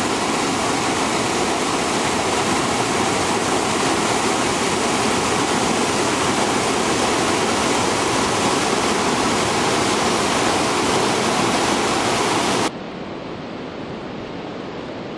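Large turbulent mountain river rushing over boulders: a loud, steady rush of whitewater. About three-quarters of the way through it cuts off abruptly to a much quieter steady hiss.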